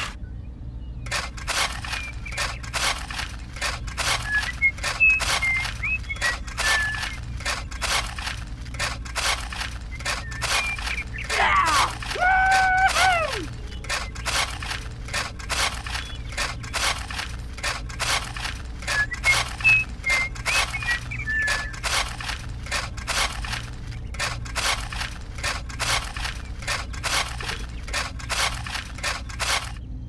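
Miniature metal shovel chipping and scraping into hard-packed earth, a steady run of short strokes about two or three a second. A brief pitched call cuts across it near the middle, and faint chirps come now and then.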